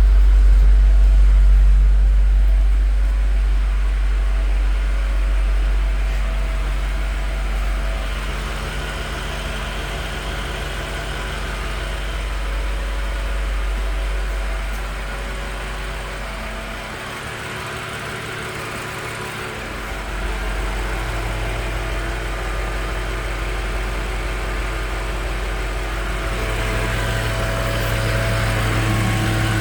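2022 BMW X6 M Competition's twin-turbo V8 idling, a steady low hum with several faint steady tones above it; the low hum drops away for a couple of seconds past the middle.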